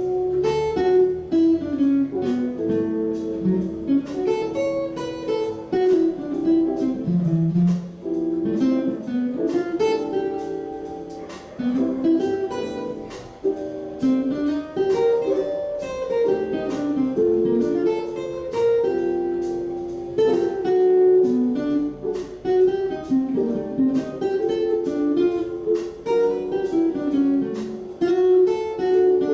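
Guitar playing a jazz improvisation: fast runs of single plucked notes in phrases that climb and fall, with brief pauses between them.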